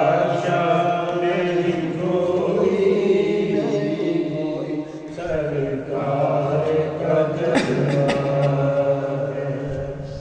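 A voice singing an Urdu devotional naat, drawing out long held notes, with a short break near the end.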